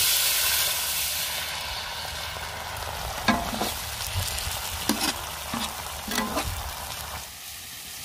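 Water poured into hot oil and onion-tomato masala in an iron kadai hisses up in a loud burst, then settles into a fading, steady sizzle and bubble as a steel slotted ladle stirs it. A few knocks of the ladle against the pan come about three, five and six seconds in.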